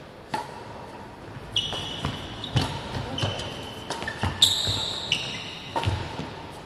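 Badminton rally: sharp smacks of rackets striking the shuttlecock, about ten irregular hits in quick exchanges, echoing in a large hall.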